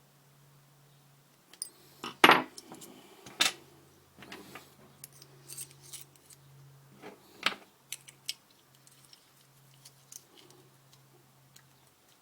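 Small metal parts and hand tools of a radio-controlled car's ball differential clicking and clinking during assembly, with sharper knocks about two, three and a half, and seven and a half seconds in, over a faint low hum.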